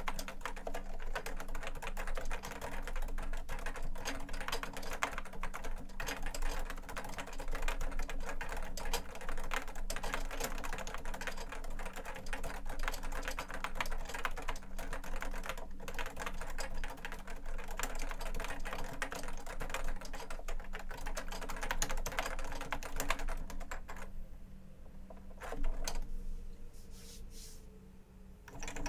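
Continuous fast typing on a JUKI Celavi FK212-JS keyboard, whose Topre capacitive rubber-dome switches have 25 g domes, with the keyboard's feet extended. Near the end the typing thins to a few separate keystrokes, one louder than the rest, and then stops.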